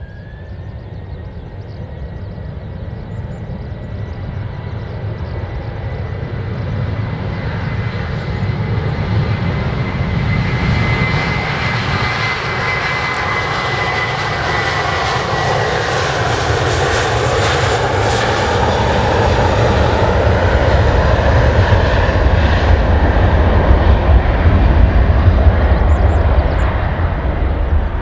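Airbus A321-231's two IAE V2500 turbofan engines at takeoff thrust during the takeoff roll. A whine rises in pitch at the start and grows louder as the jet passes close by. The sound then turns to a deep rumble of jet exhaust as the plane rolls away.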